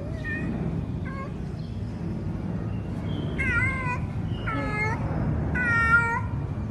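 Cat meowing repeatedly: two short meows in the first second or so, then three longer, louder meows in the second half.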